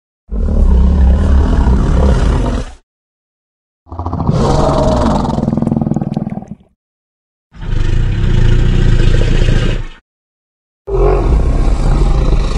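Four long edited monster roars voiced for a cartoon Liopleurodon, each about two and a half seconds, cut off into dead silence between them. The last roar runs on past the end.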